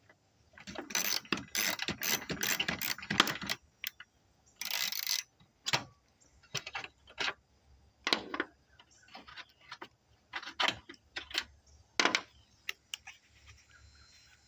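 Ratchet wrench clicking as the small fan shroud bolts are backed out, in quick runs of clicks over the first few seconds and again about five seconds in, then scattered single clicks and knocks of tools and loose bolts.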